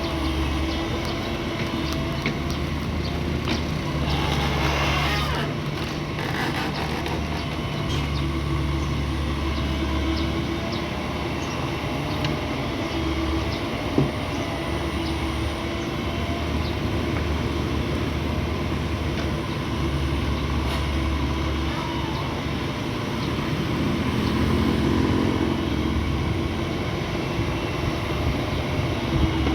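Excavator's diesel engine running steadily as it works, its low drone swelling and easing every few seconds. There is one sharp knock about halfway through.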